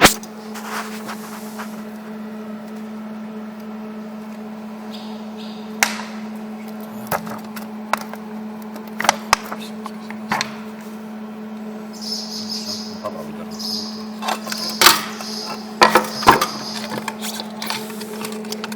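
Scattered clicks and knocks of metal tools and parts being handled while a ratchet is worked on, with more of them near the end, over a steady low hum.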